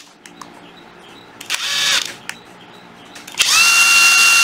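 Hilti SID 14-A 14.4 V brushless cordless impact driver run free on the trigger as a function test: a short spin-up whine about a second and a half in, then from near the end a second, longer run that settles into a steady high whine. Light trigger clicks between the runs.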